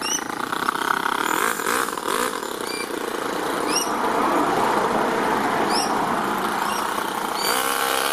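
Toyan FS-L200 two-cylinder four-stroke nitro engine in an RC crawler, running steadily under load as the truck drives. Its pitch rises near the end as the throttle opens.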